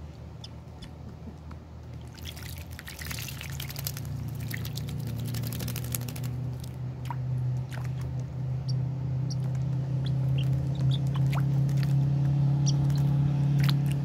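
Young European starling bathing in a shallow plastic tub of water: a few seconds of hard splashing, then scattered smaller splashes and drips. Under it a low, steady engine drone grows louder and is the loudest sound by the end.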